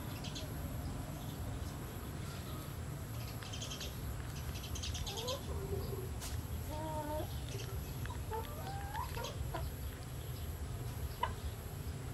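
Short, gliding bird-like calls, several of them between about five and nine and a half seconds in, over a steady low rumble, with one sharp click near the end.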